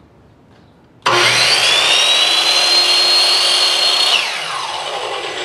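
Skil miter saw switched on, its motor whine climbing quickly to a steady high pitch, running about three seconds while cross-cutting a clamped strip of hardwood. It is then switched off and the blade coasts down with a falling whine.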